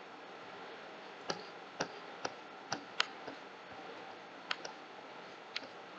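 Computer mouse clicking, about seven sharp, irregularly spaced clicks as the page is scrolled and navigated, over a faint steady hiss.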